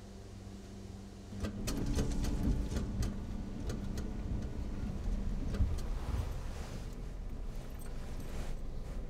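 Car running, heard from inside the cabin: low engine and road rumble that comes in about a second and a half in, with a quick run of clicks and rattles soon after and a few more later, plus rustling near the end.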